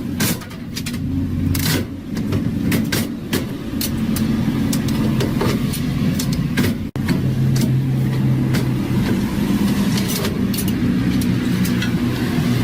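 Vending machine running with a steady low hum, with many sharp clicks and knocks of its mechanism over it. The sound cuts out for an instant about seven seconds in.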